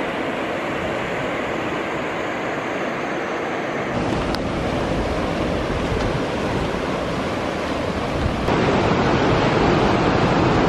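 Big ocean waves breaking on the shore, a steady wash of surf with wind on the microphone. The sound jumps abruptly louder about four seconds in and again near the end.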